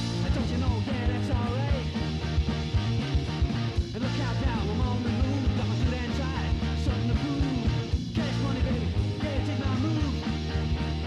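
Background rock music with a steady beat and guitars, with what sounds like a singing voice or lead guitar line over it.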